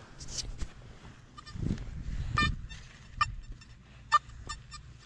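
Nokta Simplex Ultra metal detector giving a run of short, choppy beeps at a steady pitch as the coil passes over a target. The tone is jumping around, which the detectorist takes as a sign it is probably junk. A few low thumps sound under the first beeps.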